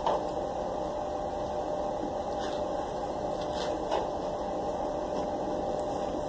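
Steady background hum, with a few faint clicks and scrapes of a plastic fork against a plastic takeout bowl while eating.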